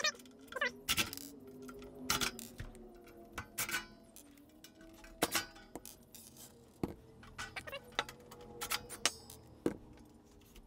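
Cordless impact driver backing out sheet-metal screws from a welder's steel case, with brief motor whirs among scattered clicks and clinks of screws, tool and metal panel being handled.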